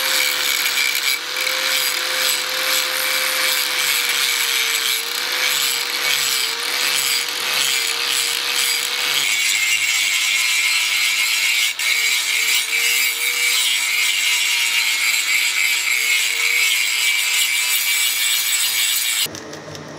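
An electric power tool working against a workpiece: a steady grating noise over a faint motor whine that wavers in pitch. The sound changes about halfway through and cuts off just before the end.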